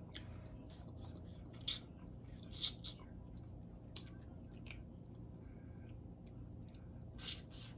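Close-up eating sounds from a seafood boil: scattered short clicks and crackles of food being handled, bitten and chewed, a few louder near the end.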